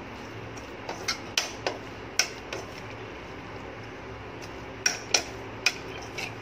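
Steel spoon knocking and scraping against the side of a stainless steel pot while stirring cauliflower florets into a thick masala: sharp, irregularly spaced clinks in two clusters, about a second in and again near the end.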